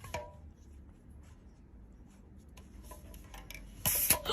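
Light scratching and rubbing with scattered small clicks, then a short, loud hissing burst near the end.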